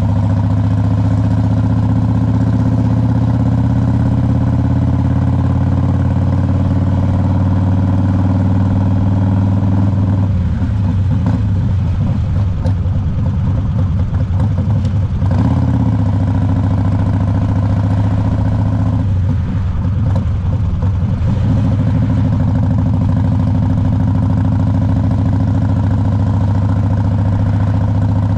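2001 Harley-Davidson Road King's Twin Cam 88 V-twin engine running on the road with a steady note. Twice, about ten seconds in and again near twenty seconds, the steady note gives way to a rougher, uneven sound for a few seconds before settling back.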